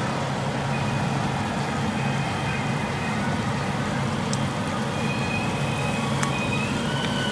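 Strips of breadstick dough deep-frying in a pot of hot oil, a steady sizzling and bubbling, with a low hum beneath.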